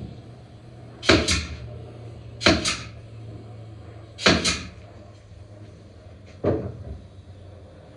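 Four sharp wooden knocks, each a quick double knock, spaced about one and a half to two seconds apart, the last one weaker.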